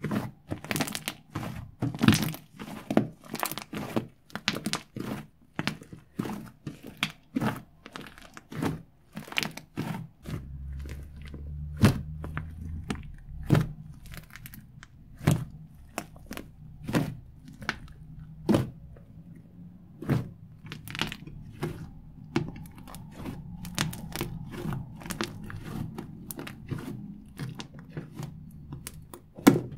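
Hands kneading, squeezing and poking a large mound of fluffy slime made from shaving foam and glue, giving a quick, irregular run of crackling clicks and pops.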